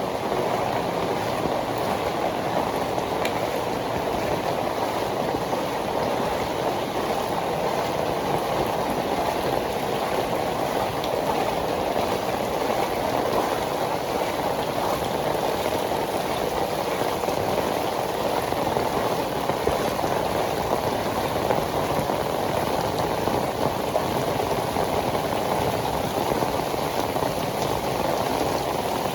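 Heavy tropical rain pouring steadily, a dense, even rush of drops hitting the ground, with no let-up or break.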